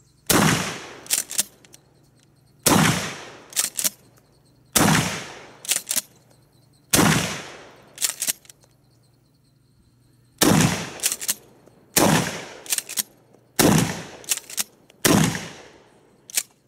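Mossberg 590A1 12-gauge pump-action shotgun firing magnum buckshot and slugs, eight loud shots about two seconds apart with a longer pause midway. Each shot is followed by the double clack of the pump being racked back and forward to chamber the next shell.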